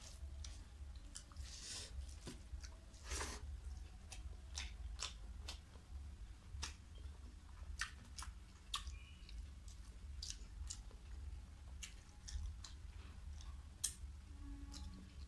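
Close-up eating sounds: fingers squishing rice into curry on a plate, and wet chewing. It comes as a string of irregular soft clicks and smacks, with a sharper one near the end.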